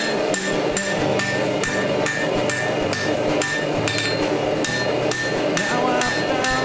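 Hand hammer striking hot steel on an anvil in a steady rhythm of about three blows a second, each blow ringing briefly: forging a sword blade.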